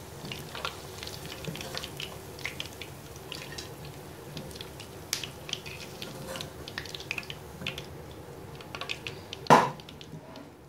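Hot frying oil in a kadhai crackling, with scattered small irregular pops and spits. A single sharp knock stands out near the end.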